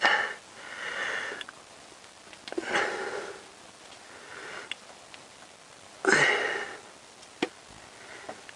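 A man's sniffs and breaths close to the microphone, about four of them, with a few small sharp clicks in between.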